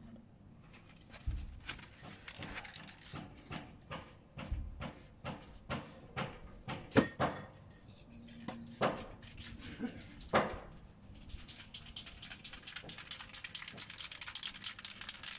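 Aerosol spray paint can being shaken and handled, its mixing ball rattling in irregular clicks with a few louder knocks. Near the end it turns to a denser, hissing crackle.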